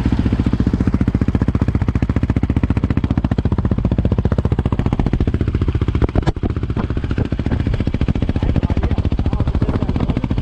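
Sport quad's single-cylinder engine running steadily with even firing pulses, and a brief sharp knock about six seconds in.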